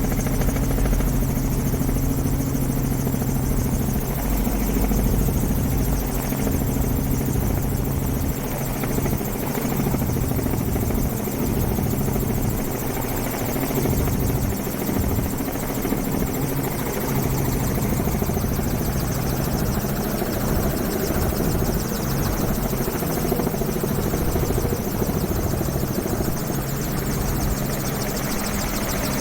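A loud, steady droning rumble with a low hum that holds for the whole stretch, most clearly in the first few seconds.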